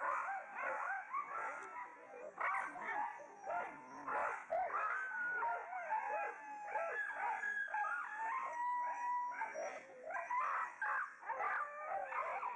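Many caged dogs whining and howling at once, a dense chorus of overlapping rising and falling cries, with one longer held howl about eight seconds in.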